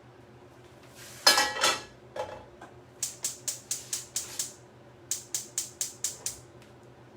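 A metal pan set down on the stovetop with a ringing clatter, then a gas burner's igniter clicking rapidly in two runs of about six or seven clicks each, as the burner is lit to roast a jalapeño.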